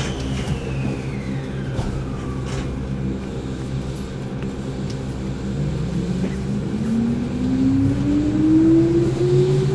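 Keihan 8000 series train running, heard from inside the car: steady low running noise, with the DC traction motors' whine rising steadily in pitch from about halfway through as the train accelerates. A fainter tone glides down in pitch during the first couple of seconds.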